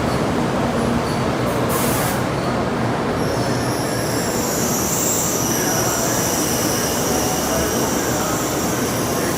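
Train running with a steady rumble. About three seconds in, a high-pitched squeal of steel wheels on the rails sets in and holds, in several tones.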